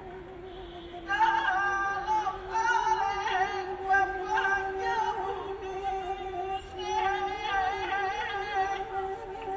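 Gamelan ensemble playing a slow, repetitive piece, a held melody line with wavering high notes sounding over a sustained lower tone; it swells up about a second in.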